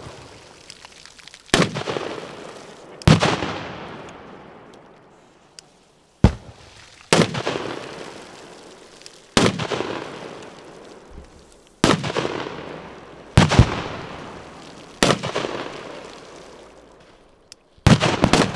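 Firecrackers going off one after another in water: about ten sharp, loud bangs, one every second or few, each trailing off over a second or two. Two come almost together near the end.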